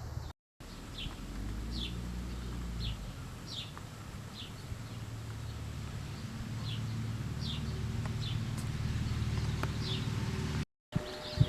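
A bird calling outdoors: a run of short, downward-sliding chirps repeated roughly once or twice a second. A steady low rumble runs underneath and grows a little louder about halfway through.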